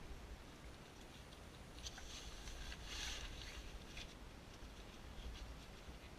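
Faint rustling and crinkling of a vinyl shower curtain being folded and handled, the clearest rustles about two to three seconds in, over a steady low hum.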